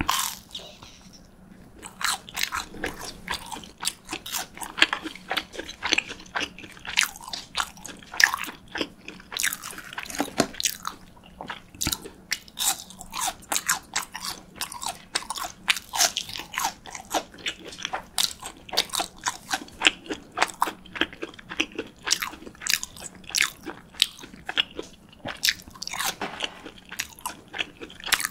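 Close-miked crunching and chewing of fried cheese sticks: a dense run of crisp crunches, several each second, with a brief lull about a second in.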